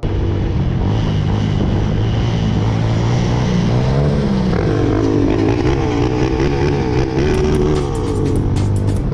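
KTM LC4 single-cylinder four-stroke motorcycle engine running under way, its pitch rising and then dropping about four seconds in, with wind rushing over the mounted camera's microphone.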